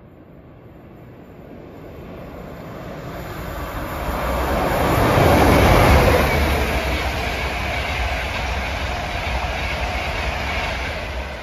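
LNER Class 91 electric locomotive and its coaches passing through a station at speed: the rush of the train builds over about five seconds to its loudest as the locomotive goes by, then the coaches run past in a steady roar that starts to fade near the end.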